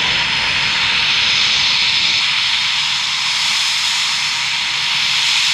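Eurofighter Typhoon's twin EJ200 turbofan engines running at taxi power: a loud, steady jet hiss with a high whine on top.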